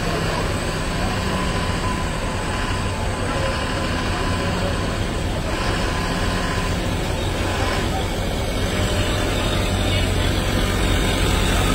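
Heavy vehicle's engine running steadily under a constant wash of noise while driving through floodwater on a road.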